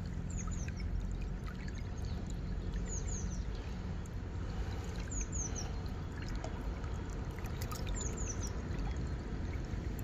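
Steady rush of moving water and splashing as a hooked brown trout is played at the surface. A small bird calls four times, each a quick run of three short falling notes, about every two to three seconds.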